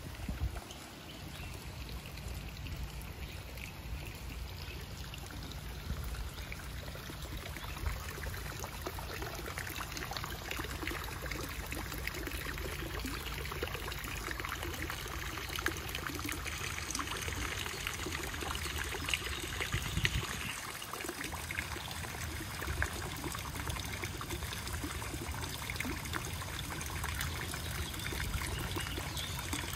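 Running water of a backyard koi pond: the waterfall trickling and the bubbler splashing at the surface, a steady splashing that grows louder about a third of the way in.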